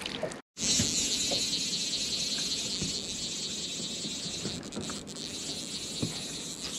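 Steady, even, high-pitched insect chorus, starting after a brief break in the sound about half a second in, with a few faint ticks underneath.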